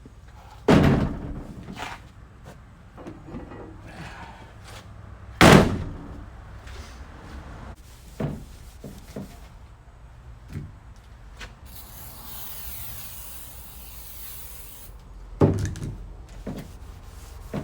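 Knocks and clunks from tools and clutch parts being handled: three loud knocks, about a second in, near the middle and near the end, with smaller clicks between and a few seconds of high hiss.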